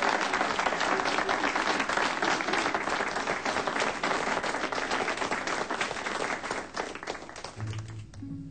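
Crowd of guests applauding with dense clapping, thinning and dying down near the end as slow bowed-string music begins.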